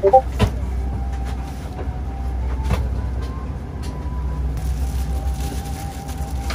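Steady low rumble of an airliner cabin's air and ventilation noise, with sharp clicks and, from a little past halfway, a denser crackling of plastic wrapping being pulled off the amenity-kit slippers and headphones.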